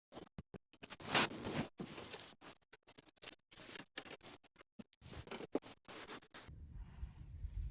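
Hands fitting a seat bolt, washers and a nylon nut: a quick run of short scrapes and clicks of small metal parts, loudest a little after a second in. About six and a half seconds in the clicking stops and a low steady hum takes over.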